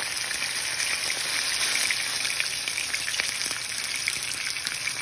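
A seasoned T-bone steak sizzling in hot oil in a frying pan: a steady frying hiss with scattered small crackles.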